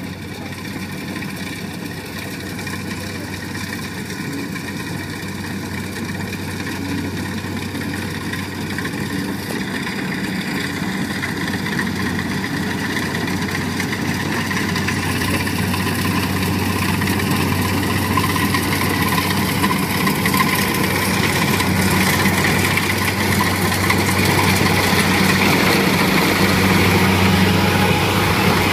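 Kubota rice combine harvester's diesel engine and machinery running steadily as it works through the paddy, growing gradually louder as the machine comes closer.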